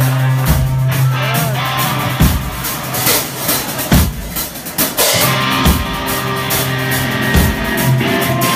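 Live rock band playing loud through a phone's microphone: electric bass holding a low note while the drum kit lands heavy kick-and-cymbal hits about every second and a half.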